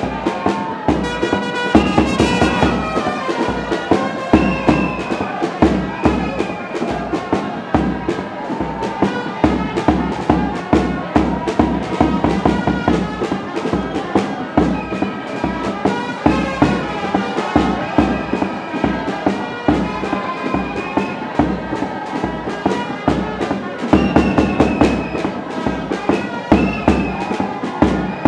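Music with a steady beat and held melody notes over it.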